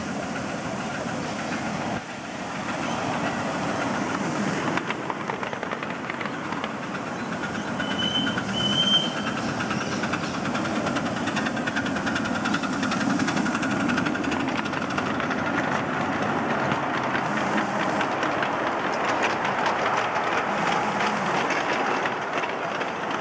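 Live steam miniature model of a 57 class steam locomotive pulling a ride-on train, running along the track with its exhaust chuffing and wheels clattering on the rails. Two short high whistle toots come about eight seconds in.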